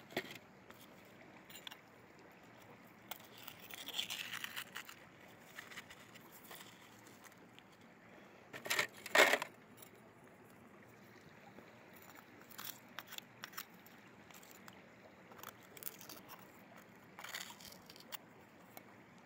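A metal crevice tool scrapes and pries at bedrock, knocking loose gravel and small rocks with scattered clicks and clinks. The loudest clatter comes about nine seconds in, as rocks are dropped onto a plastic classifier screen.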